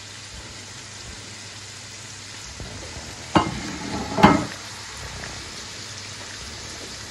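Sliced onions and green peppers sizzling steadily in palm oil in a frying pan, with two brief louder knocks a little past the middle.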